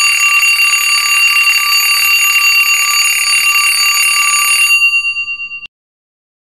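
Countdown timer's alarm sound effect: a loud, rapid ringing. It stops almost five seconds in, and its tones die away briefly before cutting off.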